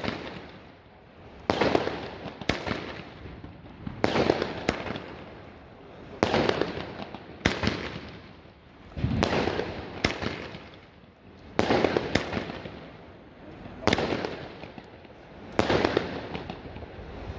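Consumer fireworks battery (cake) firing shot after shot: a loud bang every one to two seconds, sometimes two in quick succession, each ringing out and fading as the aerial effects burst overhead.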